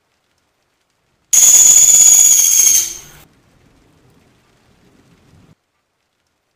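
A pelatuk sampit woodpecker giving a loud, shrill, high-pitched trill. It starts suddenly about a second in, lasts just under two seconds, then trails off faintly.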